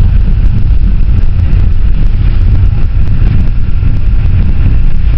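Steady low rumble of a passenger van in motion, heard from inside the cabin: engine and road noise with no break.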